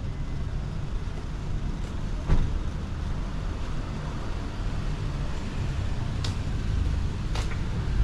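Steady low rumble of a car on the road, with a few brief sharp clicks.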